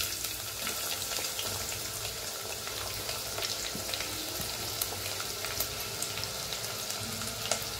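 Sliced onions sizzling in hot oil with whole spices in a stainless steel pressure cooker, a steady hiss with scattered small pops.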